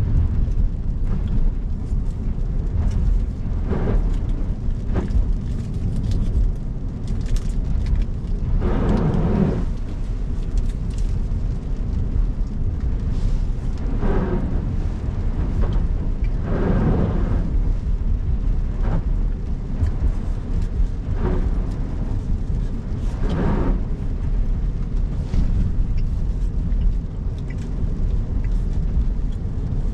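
Steady road rumble from a Cybertruck's tyres on a wet road, broken by about seven short rushing splashes, each lasting about a second, as the tyres hit rain puddles.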